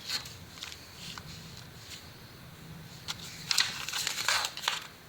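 Paper pages of a user manual rustling and crinkling as they are handled and turned, with a cluster of louder rustles about three and a half seconds in.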